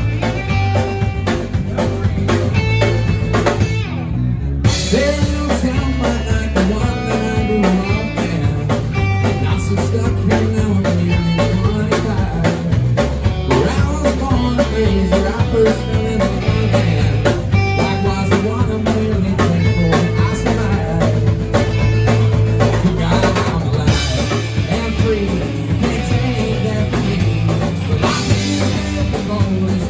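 Live rock band playing: drum kit, electric bass, acoustic guitar and electric guitar together in a steady driving groove.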